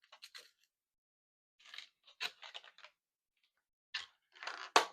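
Crinkling and rustling of a mini album's packaging in short, scattered bursts as it is handled and opened, with a sharp click near the end.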